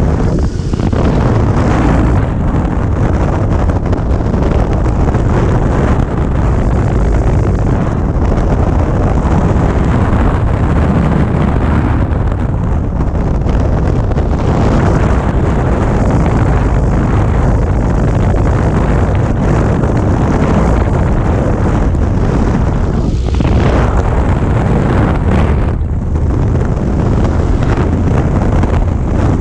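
Light single-engine airplane's engine and propeller running steadily in flight, heard from a camera mounted on the tail, with heavy wind buffeting the microphone.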